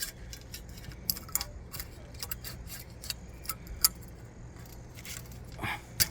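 Irregular metallic clicks and clinks of hands working the metal parts of a telescoping camp-furniture leg, trying to work the inner spring-button piece out of the tube, over a faint steady low hum.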